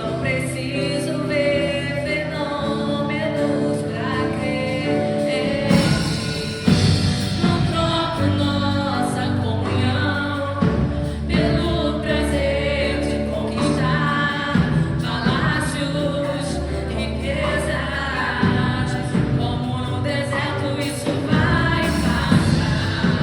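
Gospel worship song: several voices singing together over a band, with the drums and bass coming in fuller about six seconds in.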